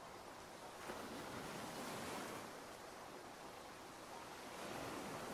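Ocean waves washing in over a steady hiss of rain, the surf swelling about a second in and again near the end.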